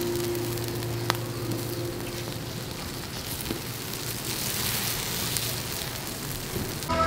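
Wood embers crackling and fat sizzling under a whole pig roasting on a spit, a steady hiss with one sharp pop about a second in.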